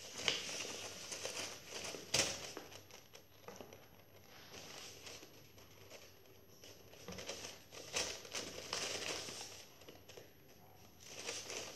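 Paper rustling and crinkling as it is pressed and smoothed onto a cardboard box by hand, with a few sharp taps.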